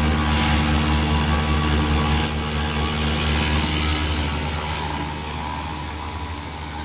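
Senke SKW-1625FB CNC foam router running, its spindle and bit cutting into the foam block: a steady machine hum under a hiss. The sound eases slightly about five seconds in.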